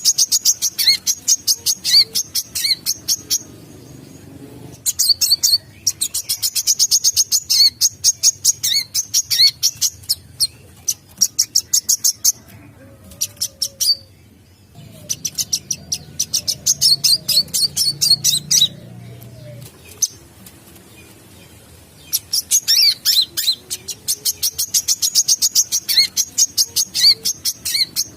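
Sunbird (the Indonesian 'kolibri') singing: rapid, high-pitched chittering trills delivered in bursts of a few seconds with short pauses between them.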